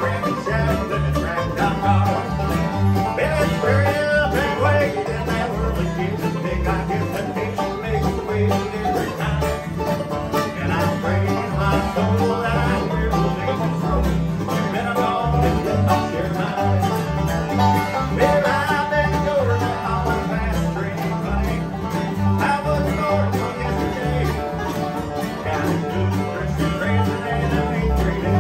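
Live bluegrass band playing acoustic banjo, mandolin, acoustic guitar and upright bass, with the upright bass keeping a steady beat under the picked strings.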